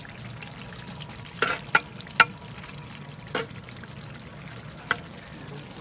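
A long metal ladle stirring thick curry in a large aluminium cooking pot: wet sloshing of the gravy, with about five short clinks as the ladle knocks against the pot.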